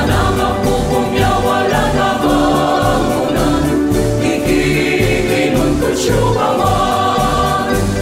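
Choir singing a song in Pangasinan over instrumental backing with a steady beat.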